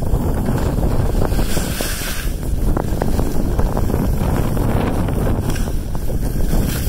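Heavy wind rush on the microphone of a phone carried downhill at speed, mixed with the scrape of sliding over snow.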